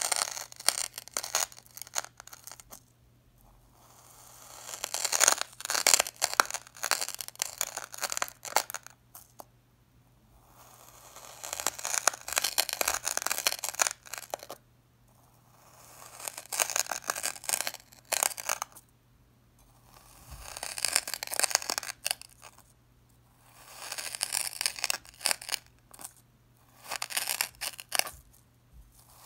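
Knife blade slicing through packed kinetic sand, a crisp crunchy crackle on each cut. About seven cuts come a few seconds apart, with short quiet pauses between them.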